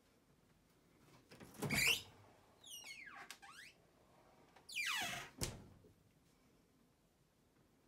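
A fridge door is pulled open with a sudden rush, followed by a brief squeaky rattle. The door is then swung shut, ending in a soft thud about five and a half seconds in.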